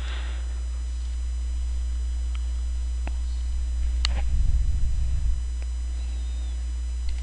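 Steady low electrical mains hum on the recording, with a few faint clicks and a brief low rumble about four to five seconds in.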